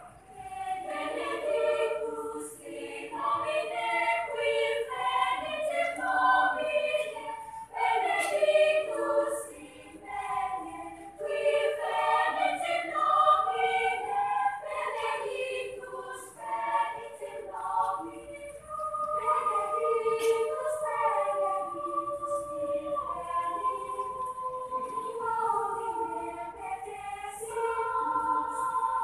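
Children's choir singing a choral piece in several parts, with long held notes in the second half.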